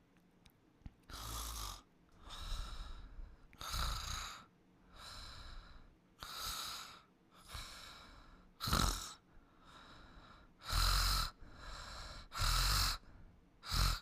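Snoring in sleep: about a dozen noisy breaths in a slow, even rhythm. Louder snores with a low rumble alternate with softer breaths.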